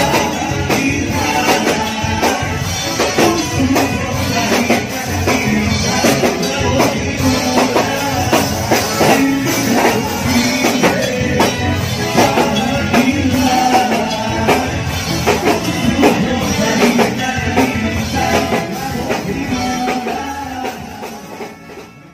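Live band playing an upbeat song, with singing over drums, bass, guitar, keyboard and horns; the music fades out near the end.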